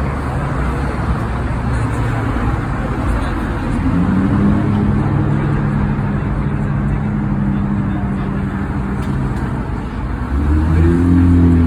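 Street traffic noise, with a vehicle engine running steadily close by from about four seconds in. A deeper, louder engine sound comes in near the end.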